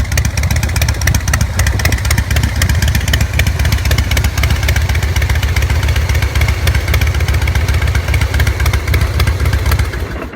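2016 Harley-Davidson Softail Slim's Twin Cam 103 V-twin idling steadily through Arlen Ness MagnaFlow mufflers, an even, crisp exhaust beat. The idle is tuned to 900 rpm with a Screamin' Eagle Super Tuner, breathing through a Performance Machine air cleaner.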